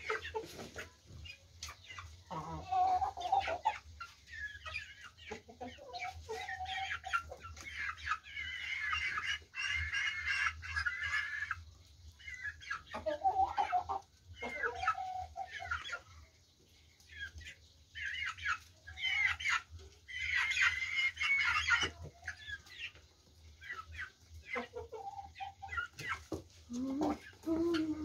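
Chickens clucking and calling on and off in short bouts, some calls low and others higher and busier.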